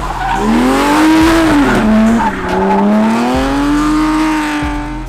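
Drift car's engine at high revs, its pitch rising and falling as the throttle is worked through a slide, over a haze of tyre noise.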